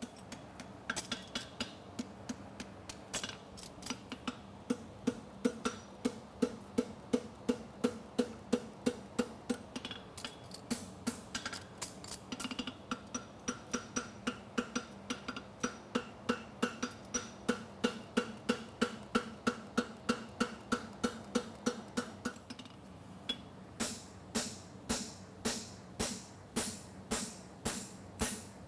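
Farrier's hammer blows on a hot steel horseshoe, a steady run of ringing strikes at about three a second. A short pause comes near the end, and then a quicker series of sharper blows follows.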